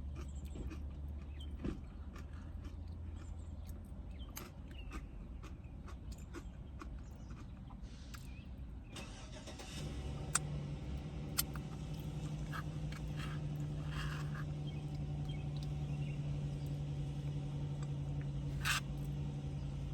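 A car engine running with a steady low hum; about halfway through its note shifts to a steadier, higher-pitched hum. Small clicks and a few sharp ticks sound over it.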